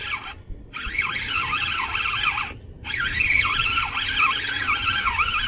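A dense chorus of many birds chirping and squeaking at once, breaking off briefly twice.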